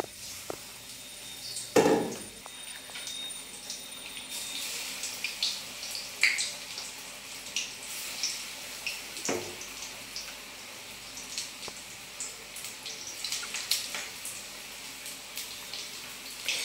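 Batter-coated green chillies (mirchi bajji) deep-frying in a kadai of hot oil: the oil sizzles and crackles with many small pops, growing busier about four seconds in. A sharp knock about two seconds in is the loudest sound, with a smaller one later.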